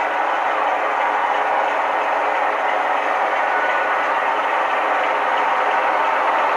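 Model diesel train with a DCC sound decoder running on a model railway layout: steady diesel engine sound from the decoder mixed with the running noise of the wheels and motor on the track.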